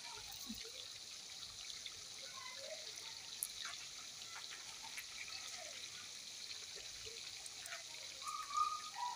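Faint crinkling of a Maggi stock cube's foil wrapper being peeled, then the cube crumbled between the fingers, a few light ticks over a steady high hiss.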